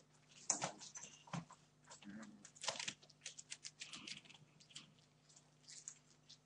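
Month-old Entlebucher puppies scuffling about: scattered light clicks, scratches and rustles of paws and claws on newspaper and toys at irregular moments, over a faint steady hum.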